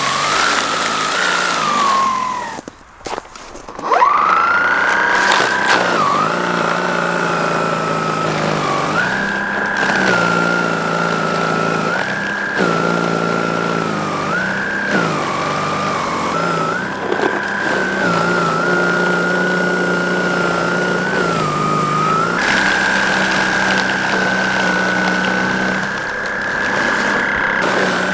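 Einhell GE-ST 36/40 Li E-Solo cordless brushless snow blower running at full power, its motor whine dipping in pitch and recovering again and again as it is pushed into deep snow. About three seconds in it cuts out briefly, then spins back up with a rising whine.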